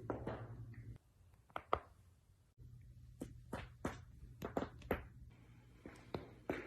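Joints cracking during a back and neck adjustment: about ten short, sharp pops and clicks, some in quick pairs, coming at irregular intervals.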